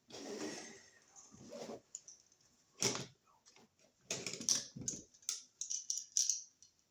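Irregular small clicks and taps of a screwdriver and metal terminal screws as a new wall outlet is handled and worked on, with a sharper click about three seconds in and a quick run of clicks near the end.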